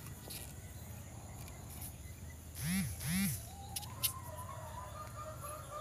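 A duck quacking twice, about half a second apart, near the middle, then a faint, drawn-out wavering tone.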